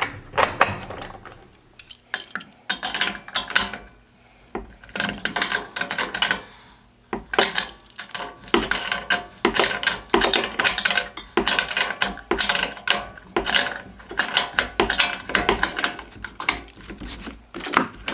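Adjustable pliers clicking and clinking against a hex nut, washers and bolt as the nut on a wheel axle bolt is tightened. A few scattered clicks at first, then a fast, irregular run of small metallic clicks.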